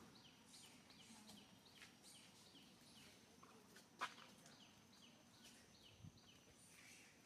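Faint, short, high chirps falling in pitch, repeated about twice a second, from a small bird calling. A single sharp click comes about four seconds in.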